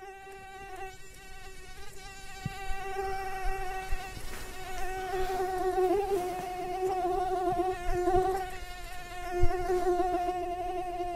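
Mosquito whining: a steady high hum that wavers slightly in pitch and grows louder, as if coming closer. A single thump about nine and a half seconds in.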